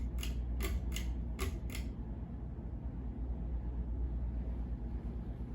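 Craftmade CXL ceiling fan with a 188 x 20 mm motor: about six quick clicks from its speed switch as it is switched up to high, then the fan running steadily with a low hum and rush of air.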